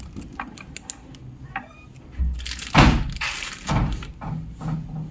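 Handling knocks and thumps as things are moved about at a small wall shelf-cabinet: a few light clicks in the first second, then a heavy thump about three seconds in and another just under a second later.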